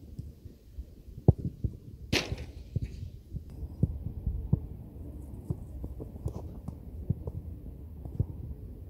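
Football being kicked and touched on artificial turf, heard as irregular dull thumps over a low outdoor rumble, with one sharper, brighter hit about two seconds in.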